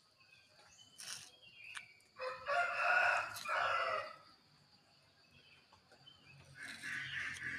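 A rooster crows once, about two seconds in, in one long call. Near the end comes a quick run of short chicken calls.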